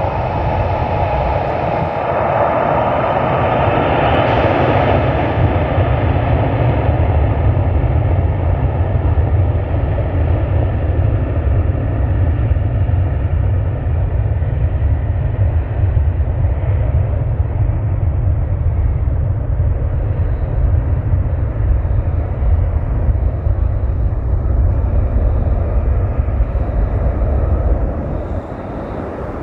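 Jet airliner engines on the runway: a loud, continuous roar. In the first few seconds it is a strong, higher roar from a Boeing 747-8 freighter's engines at takeoff power. That eases by about five seconds in into a steady deep rumble, which drops somewhat near the end.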